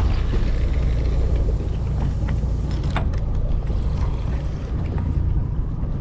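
Steady low rumble of a fishing boat at sea, its engine and the wind on the microphone, with a few faint clicks.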